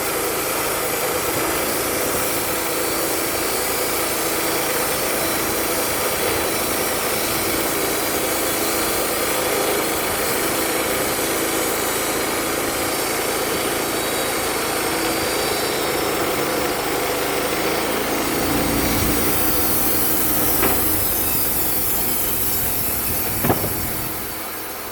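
Wood-Mizer LT35 portable band sawmill running, its blade cutting through a poplar log with a steady whine. About three-quarters of the way in the sound changes and deepens, a sharp knock comes near the end, and the level then falls off.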